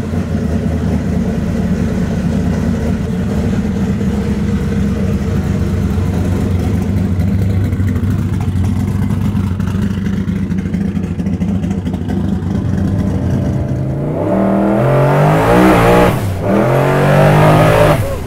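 Twin-turbo Ford Coyote V8 idling, then accelerating about fourteen seconds in: the pitch climbs, dips once and climbs again.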